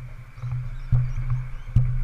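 Scott full-suspension mountain bike rolling over concrete, heard from a camera on its rear: a steady low hum with two sharp knocks, about a second in and near the end, as the bike jolts over bumps.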